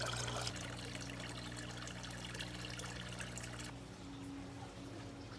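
Water trickling and splashing into a small garden fish pond, over a low steady hum; it stops abruptly about three and a half seconds in, leaving a quieter background.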